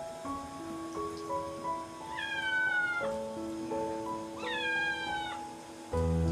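A wet kitten meowing twice while being bathed, two drawn-out meows each just under a second long, sliding slightly down in pitch, over soft background music.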